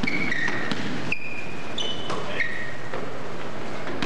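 Basketball sneakers squeaking on a hardwood gym floor as players run and cut: several short, high squeaks, some sliding slightly in pitch. A few faint knocks of the ball run under a steady hiss.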